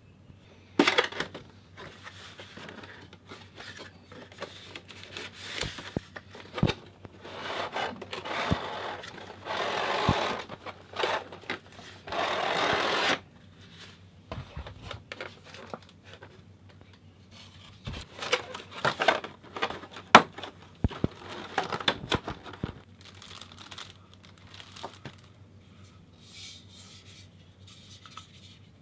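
A cardboard figure box and its packaging being opened and handled by hand: an irregular run of scraping, rubbing and rustling, with sharp clicks and knocks between, as the inner cardboard tray slides out and plastic-wrapped figure parts are unpacked. The longest, loudest stretch of rustling comes about a third of the way in.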